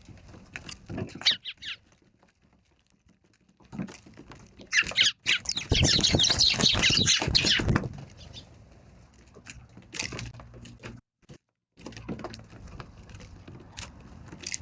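Eurasian tree sparrows chirping, a few calls early on and then a dense, loud run of chirps about five seconds in.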